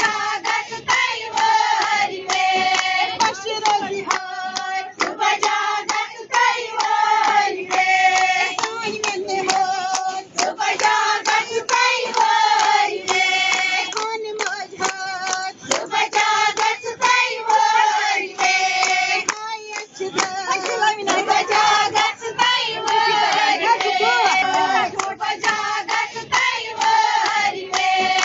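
Kashmiri song: voices singing together over steady rhythmic hand clapping.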